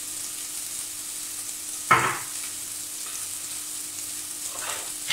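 Chopped onion, green pepper and carrot sizzling steadily in oil in a pot as they soften slowly, the base of a lentil stew. A single sharp clack about two seconds in.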